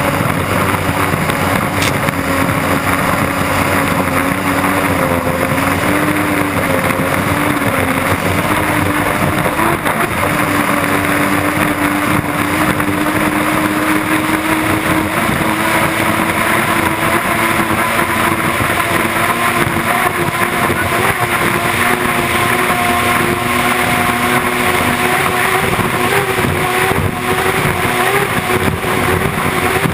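Unlimited hydroplane's turbine engine running at racing speed, heard close up from on board: a steady drone that wavers and edges up in pitch, over heavy rushing wind and water spray.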